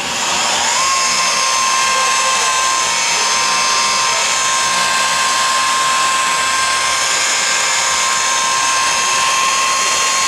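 Makita electric rotary buffer spinning up over about a second, then running at a steady high whine while polishing car body paint with 3M compound.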